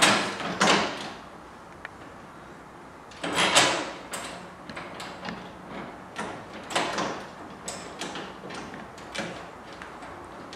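Scraping and rustling of hands working metal hardware under a golf cart's rear-seat footrest bracket, fitting a washer and nut onto a bolt by hand. The sound comes as a string of short, irregular scrapes, with the loudest ones at the very start and about three seconds in.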